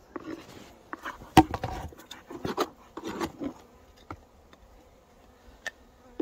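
Honeybees buzzing from a hive colony that is still alive after the snowstorm. Over the buzzing come crunching and scraping as the hive is dug out and handled, with a sharp knock about a second and a half in. The second half is quieter, mostly the bees' hum with a few small clicks.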